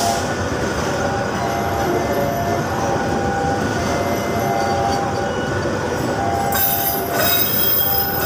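Senja Utama Solo passenger train rolling slowly into a station, a steady rumble of wheels on rail with on-and-off metallic squeals. A sharper, very high squeal starts about six and a half seconds in as the train brakes.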